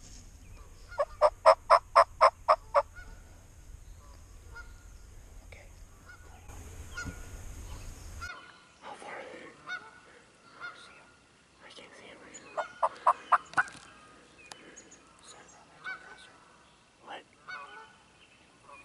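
Turkey yelping: a loud run of about eight evenly spaced yelps about a second in, and a second, shorter run of about six later on. Faint short chirps sound between the two runs.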